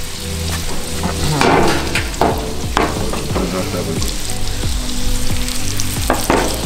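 Lobster tails in butter sizzling in small cast-iron skillets on a gas grill, with several clanks and scrapes as a skillet is handled on the grates and lifted off.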